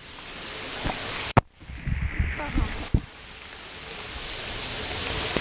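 Cold water spraying down from a pool's overhead shower feature, a steady hiss, with two sharp knocks about one and a half and three seconds in.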